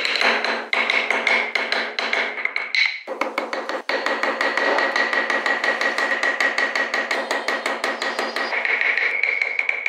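A carving chisel tapped with quick, light strikes, several a second, as it cuts into the wood, the steel ringing faintly with each tap. The tapping breaks off briefly about three seconds in, then continues.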